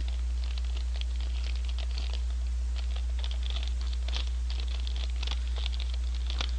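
Paper fry bag being folded and creased by hand, making irregular crisp crinkles and rustles, over a steady low hum.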